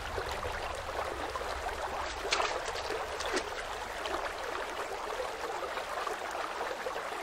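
Water trickling and gurgling steadily through a concrete drainage pipe, with a few louder splashes around two to three seconds in.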